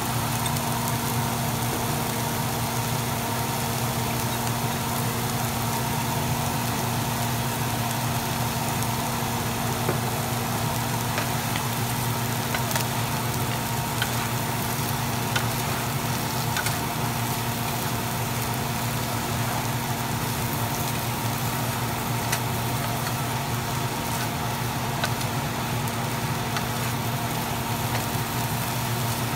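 Salmon and sliced red onion sizzling in a frying pan over a steady low hum, with a few faint clicks as a wooden spoon stirs them.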